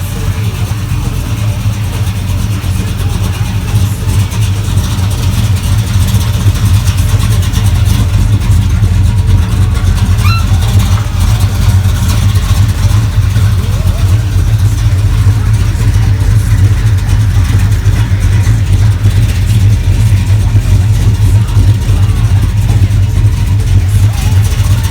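Supercharged 440 big-block V8 of a 1969 Dodge Charger running steadily with a deep, continuous rumble, getting a little louder over the first few seconds.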